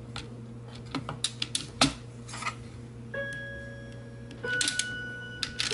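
Light irregular clicks and ticks from a 3D-printed circular sock knitting machine as its needle cylinder is turned slowly by hand and the latch needles pass the cams. A thin steady tone sounds about three seconds in for a little over a second.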